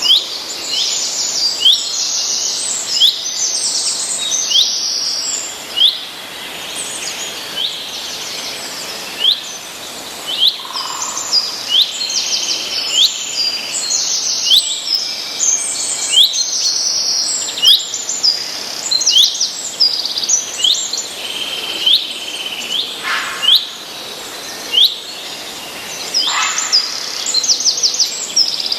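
Songbirds chirping and singing: short, sharp high chirps come every second or so, with quick rapid trills between them.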